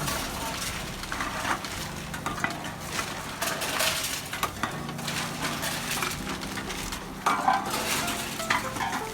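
Empty cans and bottles being fed into a reverse vending machine: the machine's motor hums in stretches, stopping and starting, while the containers clink and clatter.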